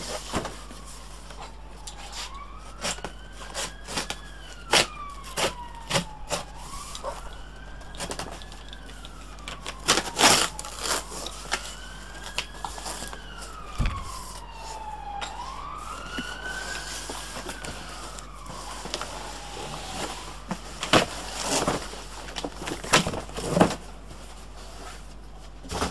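An emergency vehicle's siren wails in the background, rising and falling slowly about four times before it stops about twenty seconds in. Over it come sharp knocks, scrapes and rustles of a cardboard box being cut open and handled, the loudest knocks near the end.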